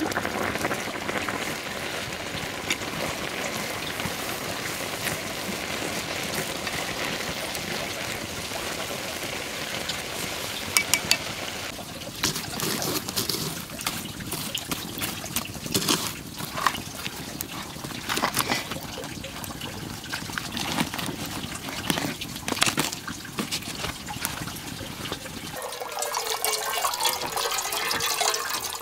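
Pot of rice boiling hard over a wood fire, a steady bubbling hiss. About twelve seconds in, it gives way to a wood fire crackling, with sharp snaps and pops as a log is pushed in. Near the end, water trickles from a bamboo pipe into a metal pot.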